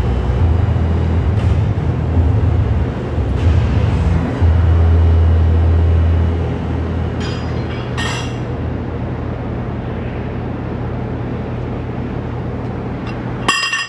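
Steady low rumble of background noise in a large room, its low hum swelling and easing for the first few seconds, then settling. There are two short ringing clinks, one about eight seconds in and one at the very end.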